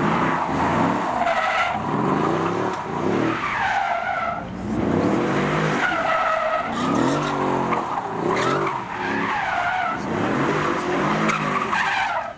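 A car drifting: its tyres squeal in repeated wavering screeches while the engine revs rise and fall with each slide. The sound cuts off suddenly at the end.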